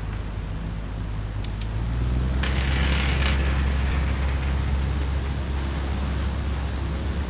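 Electric desk fan running: a steady low hum with a rush of air. About two and a half seconds in the hiss swells for about a second.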